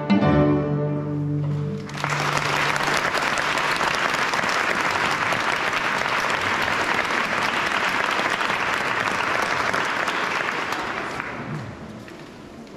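A children's string ensemble of violins and cellos holds a chord that breaks off about two seconds in, and the audience at once breaks into applause, which fades away near the end.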